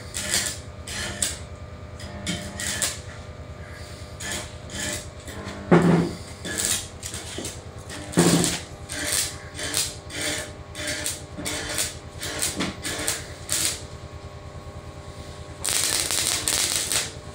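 Stick (arc) welding: short scratchy crackles and knocks as the rod is struck against the steel, then near the end the arc catches and crackles and sizzles steadily for about a second and a half before stopping. A steady low buzz runs underneath.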